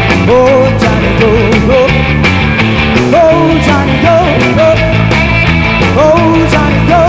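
A band playing with electric guitars, bass guitar and a drum kit: a steady drum beat and bass line under a bending melody line.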